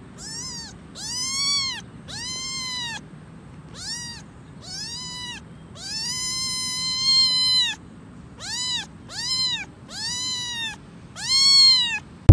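Kitten meowing repeatedly: about ten high-pitched calls, each rising then falling in pitch, with one longer, drawn-out meow about six seconds in.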